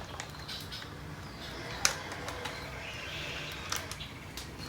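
Small metal clicks and scraping from a 4 mm Allen key working the spark arrestor screw on a Yoshimura slip-on exhaust, with one sharp metallic click about two seconds in.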